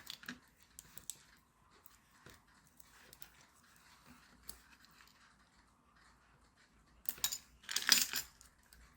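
Close handling of a self-adhesive anti-theft security label: a few faint small clicks, then a louder scratchy rustling from about seven seconds in.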